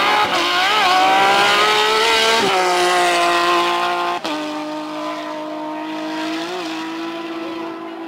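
Porsche 997 GT3 rally car's flat-six engine at high revs, changing up twice as it accelerates away, each shift a sudden drop in pitch. The sound grows fainter in the second half as the car pulls into the distance.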